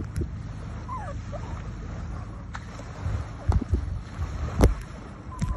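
Jet ski engine idling low out on the water as it moves off, under wind buffeting the microphone in several sudden thumps.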